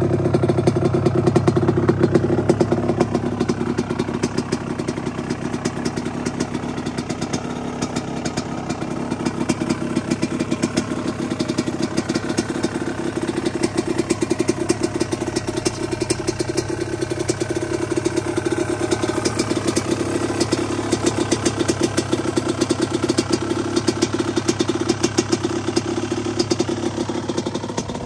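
1982 Suzuki RM125's single-cylinder two-stroke engine idling on its test fire after restoration, with a fast, steady exhaust beat. It is a little louder for the first few seconds, then settles.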